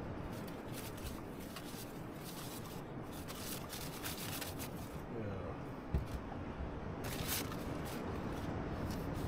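Rustling and crinkling of a paper bag and wrapping as potatoes are handled, in short scattered bursts, the longest one late on. A single dull knock about six seconds in, over steady low background noise.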